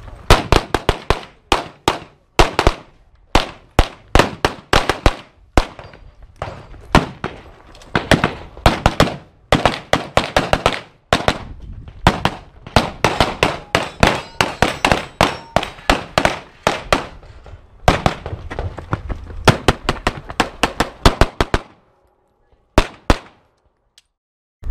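Rapid pistol gunfire during a practical-pistol stage run: fast strings of shots broken by short pauses while the shooters move between positions. The firing stops about three seconds before the end, with one last pair of shots shortly after.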